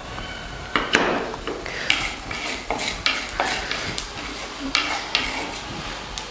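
Wooden slotted spatula scraping and stirring fennel seeds as they dry-roast in an unoiled clay pan. The strokes are sharp, uneven and repeated, starting just under a second in.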